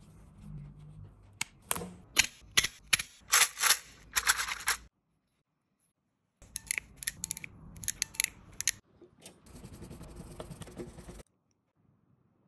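Hand tools working electrical cable: sharp clicks and scrapes as a cable stripper is worked on white flex and the wire ends are handled. The sounds come in short runs, cut off twice by sudden silences.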